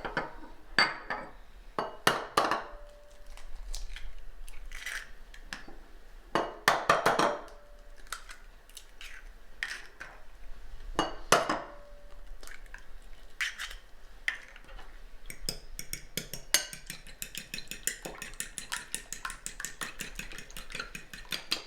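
Eggs being cracked on the edge of a bowl, heard as scattered sharp knocks and shell sounds, then beaten briskly in the bowl: from about fifteen seconds in, a fast, even run of utensil clinks against the bowl.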